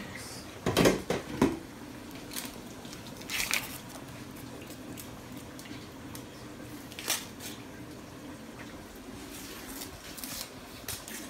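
Kitchen knife clicking and scraping on a wooden cutting board as onions are peeled, with the loudest knocks about a second in and scattered single clicks after.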